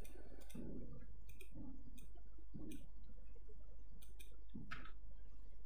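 Computer mouse clicking several times at irregular intervals, over a steady low background hum.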